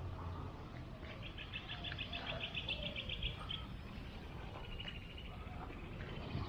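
A bird singing a rapid trill of evenly spaced high notes, about eight a second, lasting a little over two seconds, then a shorter, fainter trill a second or so later.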